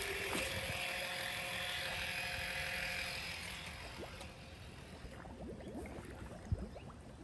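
Pool Blaster Fusion PV10 battery-powered handheld pool vacuum running with a steady motor hum, which fades out about three to four seconds in as the head goes under water. Faint water sounds follow, with a single knock near the end.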